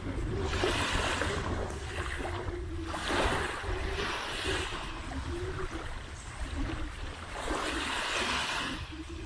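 Small sea waves washing onto a beach in repeated surges a second or two apart, with a faint wavering engine drone, like a distant boat, running underneath.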